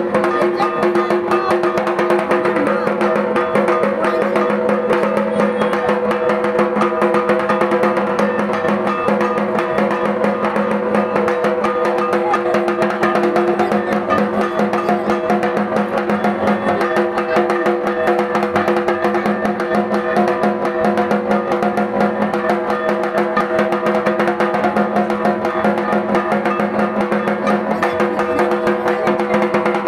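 Dhak drums beaten in a fast, continuous rhythm, with steady ringing tones held underneath.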